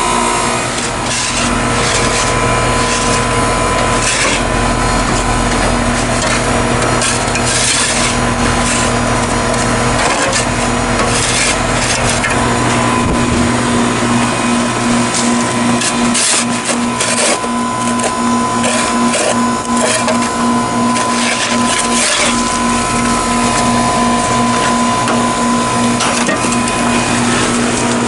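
Snow and ice being scraped and chipped away in repeated irregular strokes, over the steady hum of a Goodman GSH13 heat pump outdoor unit running.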